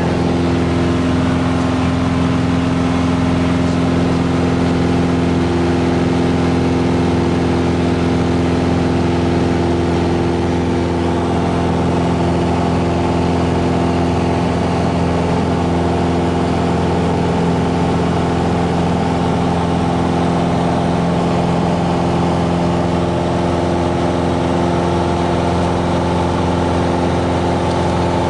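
Piper PA-28-161's four-cylinder Lycoming O-320 engine and propeller running steadily in flight, a constant unchanging drone heard inside the cabin.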